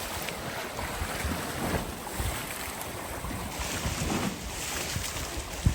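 Wind buffeting the microphone over choppy sea water splashing around a moving boat, the water rough from a passing boat's wake. A single sharp thump near the end.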